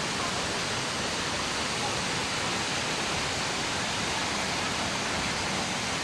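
Steady, even rush of water spilling over the rock cascades of a waterfall into pools.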